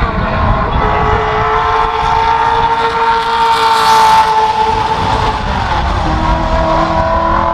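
Shelby Mustang race car's V8 running at high revs under power as it passes, loudest about four seconds in. The engine note steps down in pitch near the end.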